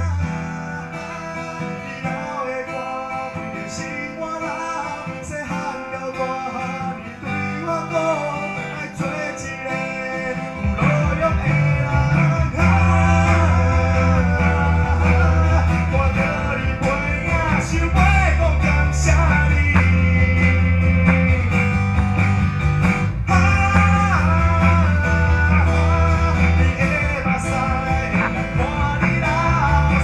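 A small live band plays, led by acoustic guitar with electric bass. The passage is quieter and without bass for about the first ten seconds. Then the bass comes back in and the band plays louder.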